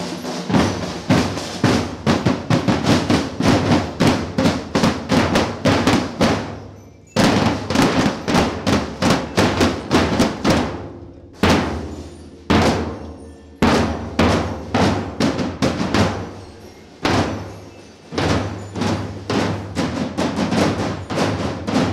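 A marching band's snare drums and bass drums playing a fast, dense drum cadence, with a few short breaks in the pattern, each followed by a strong accented beat.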